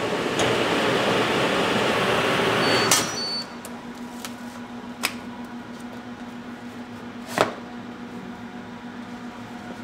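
Dempack H25 one-step shrink machine running a shrink cycle: the hood's hot-air blower rushes loudly for about three seconds, then stops with a short beep and a click as the cycle ends and the lid releases. A lower steady fan hum carries on afterwards, with two sharp clicks as the wrapped box is handled.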